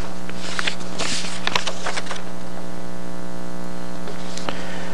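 Steady electrical mains hum with a buzz of many overtones, unchanging throughout, with a few faint brief noises in the first two seconds.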